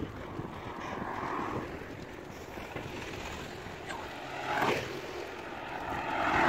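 Wind rushing over the microphone and road noise from a bicycle ridden along a street. Motor traffic passes, swelling briefly about four and a half seconds in and again near the end.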